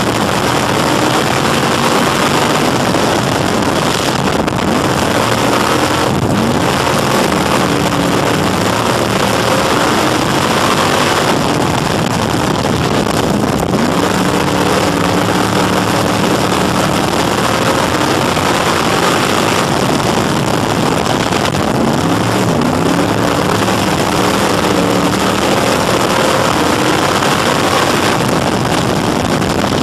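Crate Sportsman dirt-track car's V8 engine racing, heard from inside the cockpit. It runs hard on the straights, drops in pitch as the throttle comes off for each turn, then winds back up about every seven to eight seconds.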